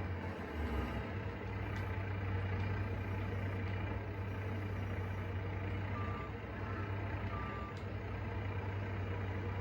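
Telehandler's diesel engine running steadily as it loads straw bales into the shredder, with two short high beeps about two-thirds of the way through.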